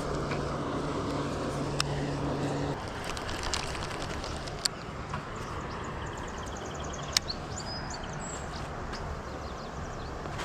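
Steady rush of water at a lake outflow, with a low motor hum that cuts off about three seconds in. A few sharp clicks and a short run of high bird chirps near the middle.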